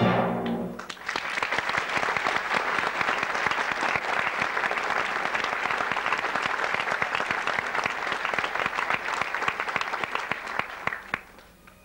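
Theatre audience applauding as the orchestra's last chord dies away. The clapping fades out near the end.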